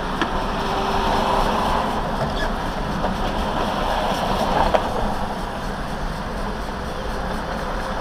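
Steady road and engine noise heard inside a moving car's cabin, with one small knock a little past halfway through.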